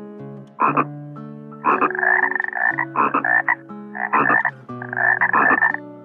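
Frog calling: five bouts of quick, buzzy, high-pitched croaks. The first is short, about half a second in, and the later ones run up to a second each.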